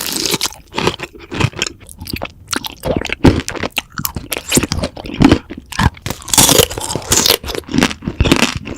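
Close-miked crunchy chewing and biting, a rapid, irregular series of crisp crunches.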